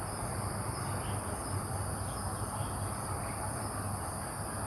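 Insects chirring steadily in a continuous high-pitched drone, over a low, even background hum.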